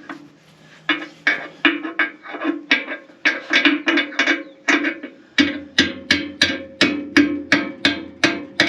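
Hammer blows on a steel pin, about three ringing metal strikes a second, driving the pin into a bushing on a bulldozer's hydraulic ram mount.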